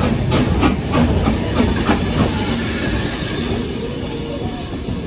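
Steam train moving past at low speed: a regular beat of about three a second gives way about halfway through to a steady hiss of steam as the carriages roll by.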